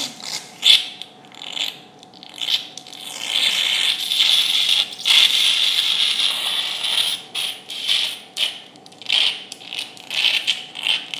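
Surgical instruments working in a dog's opened frontal sinus during a dorsal rhinotomy: irregular hissing, scraping bursts, with a longer steady hiss from about three to seven seconds in.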